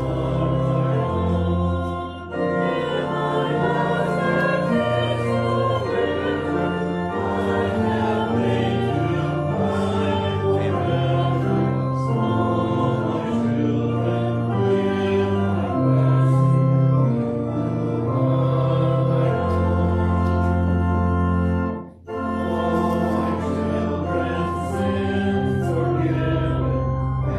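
Church organ playing a hymn in held chords over a stepping bass line, with the congregation singing along. There is a short break about two seconds in and another about twenty-two seconds in, between phrases.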